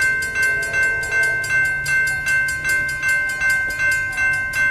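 Railroad grade-crossing warning bell ringing in a steady, even rhythm of just under three strikes a second, sounded as the crossing activates for an approaching train.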